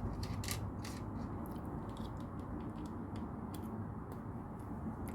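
Plastic LEGO pieces being handled and clicked together: a scattering of irregular sharp clicks over a steady low rumble.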